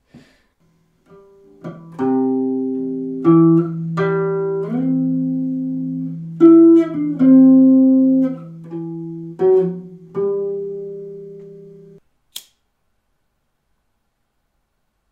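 Electric bass guitar played as a short phrase of plucked notes and chords, each ringing and slowly fading, for about ten seconds before cutting off suddenly. A single sharp click follows.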